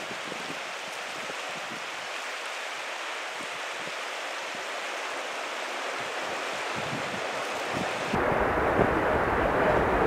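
Steady rushing of a shallow river running over rocks, where hot spring water pours into the Gardner River. About eight seconds in it becomes abruptly louder, with low wind rumble on the microphone.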